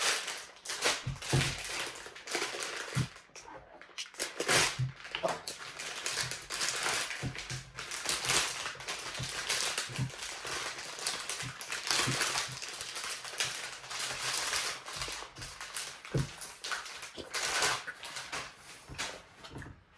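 Clear plastic wrapping crinkling and rustling in irregular bursts as it is pulled off a small telescope.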